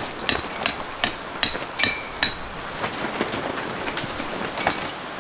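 A hammer striking metal: about seven quick, evenly paced blows with a short metallic ring in the first two and a half seconds, then a few lighter taps.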